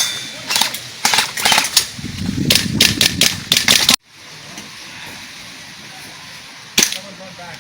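Airsoft guns firing: sharp cracks singly and in quick clusters over the first four seconds. The sound then breaks off abruptly, and one more shot cracks near the end.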